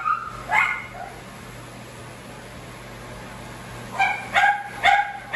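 Small dog giving short, high yips and whines, two near the start and four in quick succession near the end, as it squirms against having the inside of its ear shaved. Under them the low, steady hum of Wahl Bravura mini clippers running.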